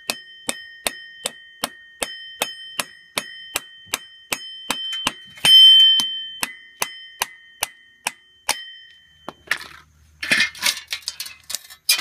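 Hammer tapping a 25 mm socket to drive the worn front spindle needle bearing out of a Ford Excursion hub, about three light taps a second, each leaving a metallic ring, with one harder blow about five and a half seconds in. The taps stop after about eight and a half seconds, and from about ten seconds in the socket, bearing and loose needle rollers clatter onto concrete.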